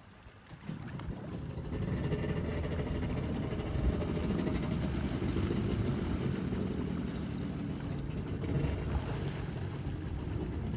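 Stand-up jet ski's engine coming up on throttle about a second in and running steadily, with the water jet rushing behind the ski.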